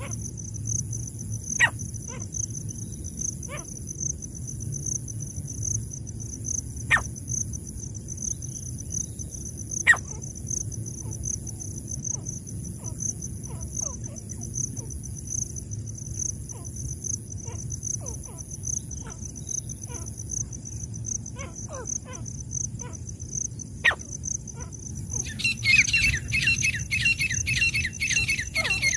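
Insects trill steadily high-pitched throughout, with scattered short, sharp chirps. About 25 seconds in, a francolin (teetar) breaks into a fast series of loud repeated calls, the loudest sound here.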